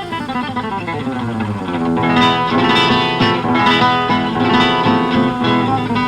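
Background music: a plucked guitar playing, with a falling run of notes in the first couple of seconds.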